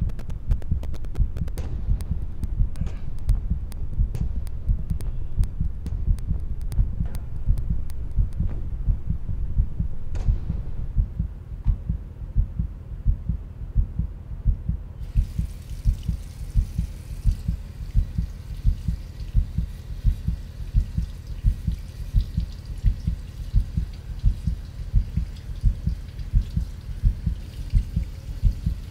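Heartbeat sound effect: deep, even thumps at about two a second. About halfway through, the steady hiss of a running tap comes in over it.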